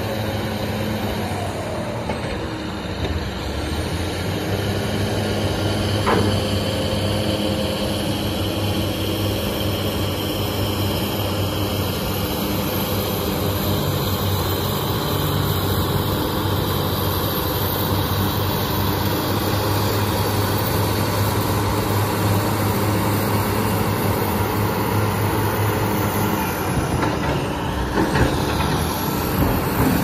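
Diesel engines of a BEML BE1000 hydraulic excavator and a crawler bulldozer running under load, a steady low drone, with a single sharp knock about six seconds in.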